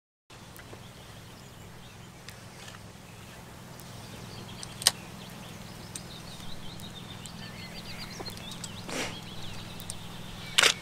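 Steady low hum with a few sharp clicks, the loudest about five seconds in and near the end, and faint high chirping in the middle.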